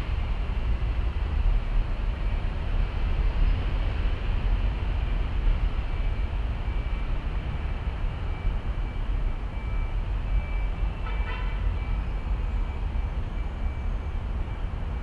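Outdoor ambience: a steady low rumble, with a faint thin high tone that comes and goes and a short chirp about eleven seconds in.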